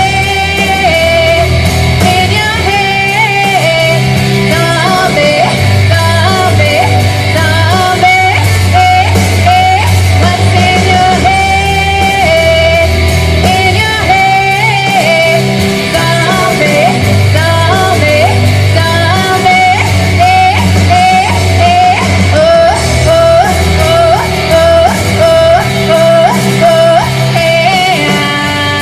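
A woman singing an 80s-style rock song over loud rock accompaniment with a pulsing bass line.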